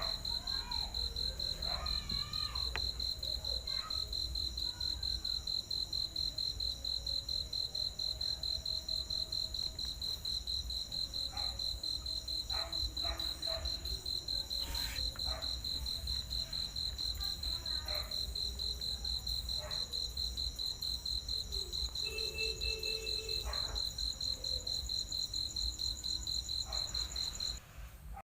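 Cricket chirping in a fast, steady pulsing trill on one high pitch, over a low hum; it stops suddenly near the end.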